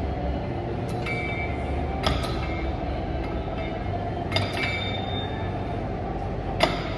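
Four sharp metal clinks of gym machine weights, a second or two apart, as a glute kickback machine is worked through its reps. Under them runs a steady low hum.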